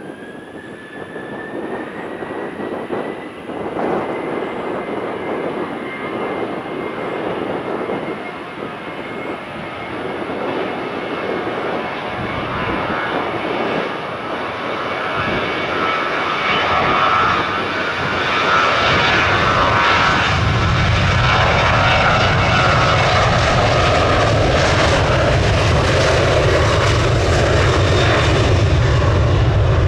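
Jet airliner taking off, its engines at takeoff power growing steadily louder. A high whine rises at the start and then holds steady over the noise, and a deep rumble comes in about two-thirds of the way through.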